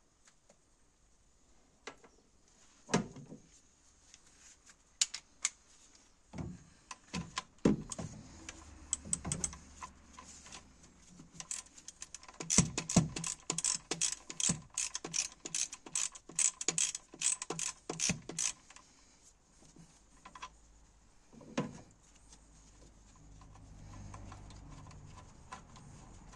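Socket ratchet clicking in quick runs as it works the bolts of a VW T4's EGR valve, with scattered knocks of the tool against metal; the longest run of clicks comes about halfway through.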